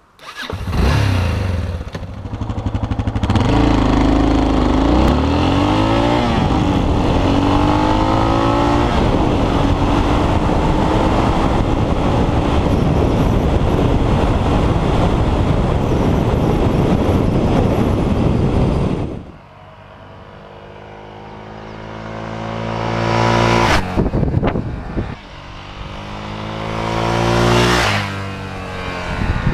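Yamaha XT600 single-cylinder four-stroke engine accelerating hard through the gears, heard from on the bike with wind rush; the revs climb and fall back at each gear change. About two-thirds of the way in, the sound cuts abruptly, and the bike is then heard approaching a roadside camera twice, its engine growing louder to a peak as it nears.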